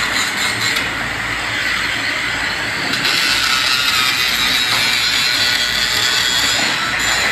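Handheld angle grinder running and grinding on a steel pipe and flange, a steady grinding noise that brightens about three seconds in as the disc bites harder into the metal.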